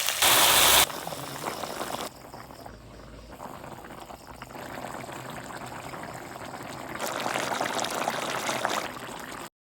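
Liquid in a pan of fish curry: a loud splashing hiss in the first second, then a steadier, quieter hiss that grows louder again about seven seconds in.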